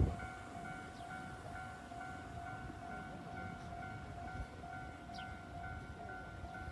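Japanese level-crossing warning bell ringing, an electronic ding repeating rapidly and evenly, over a low rumble. There is a short thump at the very start.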